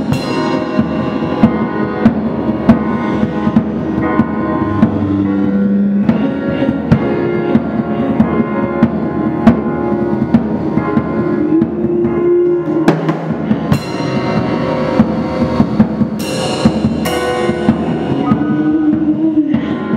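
Improvised live music: an acoustic drum kit played with frequent hits, and a few cymbal crashes in the second half, over held keyboard and synth notes.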